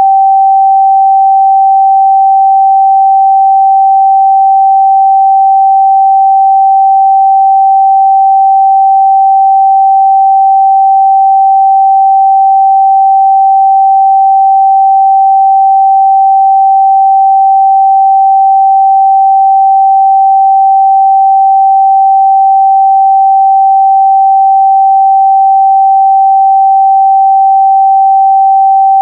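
A pure 777 Hz sine-wave test tone, held at one steady pitch and level without a break.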